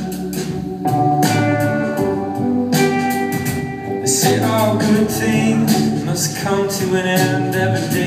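Live band music without lyrics: guitar with layered sustained tones over a regular beat, some of the tones gliding in pitch about halfway through.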